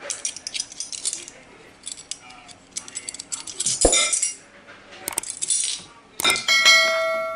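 A metal spoon scraping and clinking against a bowl while sugar is spooned into the flour. About six seconds in comes a sharper clink that rings on for a second or so before fading.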